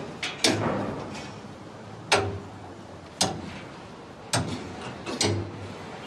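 Hammers striking steel concrete formwork panels and their clamps: sharp metallic knocks at uneven intervals, roughly one a second, some ringing briefly.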